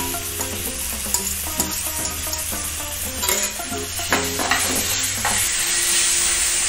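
Mashed roasted eggplant sizzling in hot oil in a nonstick frying pan while a steel spatula stirs and scrapes it; the sizzle grows louder from about four seconds in.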